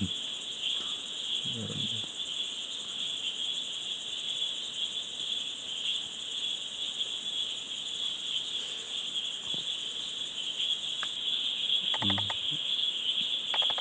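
Night-time chorus of crickets and other insects, an unbroken high trill at two pitches.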